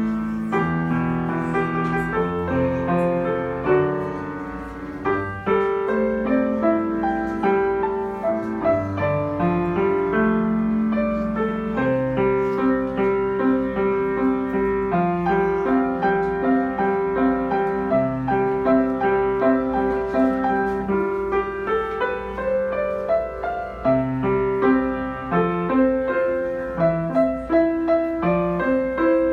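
Solo piano playing a melodic piece, with held notes and chords moving at a moderate, even pace.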